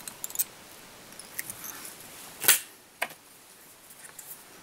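Small clicks and taps from handling fly-tying tools and materials at the vise, with one louder knock about halfway through and a sharp click just after it.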